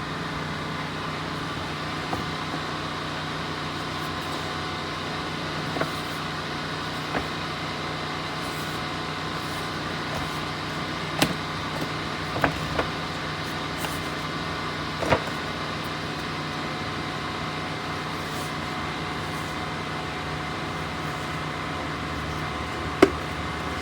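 Scattered sharp clicks and light knocks as the plastic parts of a Virtue Spire IR2 paintball hopper are handled and taken apart, over a steady background hum.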